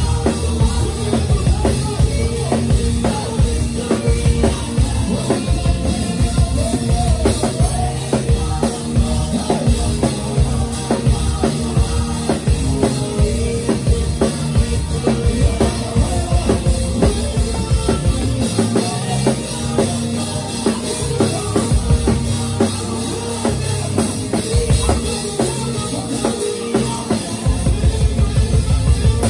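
Live band playing an upbeat gospel praise groove with no vocals: a drum kit with kick and snare keeps a steady beat over bass and keys. The kick and bass drop back for a few seconds past the middle, then come back in.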